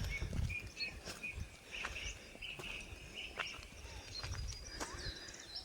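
Small birds chirping in a string of short notes, with thin high calls above, over a low outdoor rumble and a few sharp clicks.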